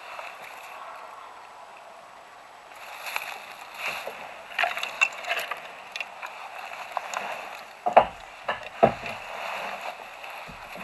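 Dry reed stems rustling and crackling as they are pushed and handled from a kayak, with irregular sharp snaps from about three seconds in. There are two heavier knocks around eight and nine seconds in.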